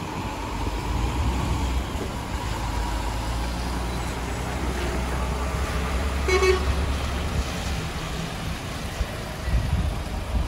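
Diesel articulated lorries running at low speed as they roll past and turn in, with one short truck-horn toot about six seconds in.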